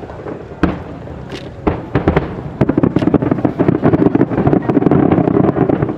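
Aerial fireworks display: a few separate sharp bangs in the first two seconds, then a dense run of rapid crackling bangs from about two and a half seconds in until just before the end.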